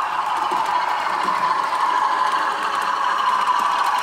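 OO gauge model diesel locomotive hauling bogie hopper wagons along the track: a steady whirring of motor and wheels on rail, with faint rapid clicking from the wheels over the track.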